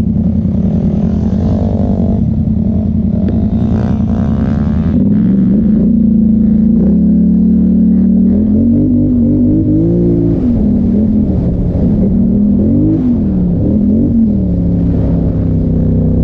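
Polaris Sportsman XP 1000 ATV's twin-cylinder engine running under throttle while riding over dirt. The engine pitch steps up about a third of the way in, climbs higher past the middle, drops back, then rises and falls twice near the end as the throttle is worked.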